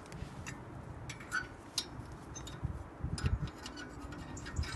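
Light metallic clicks and clinks from the spring clip on a 2012 Volvo XC60's front brake caliper being handled and worked loose by hand, with a few dull knocks about three seconds in.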